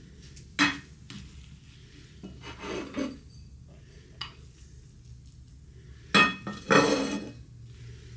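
Kitchenware being handled: a sharp knock about half a second in, a short scrape near three seconds, and a louder clatter followed by a scrape about six seconds in.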